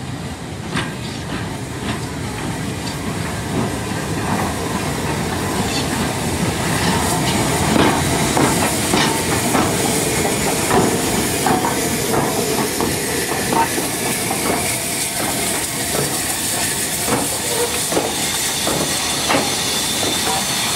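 Two steam locomotives, SR Lord Nelson class No. 850 and LMS Black Five No. 45379, rolling slowly past along a platform. The wheels click and clank over the rail joints under a steady hiss of steam, which grows louder over the first half as the engines draw alongside.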